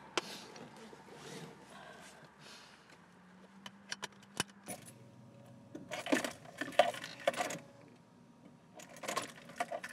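Car keys jangling and clicking in the ignition, in two short clusters, with scattered small clicks before them. The key is being turned, but the engine does not start.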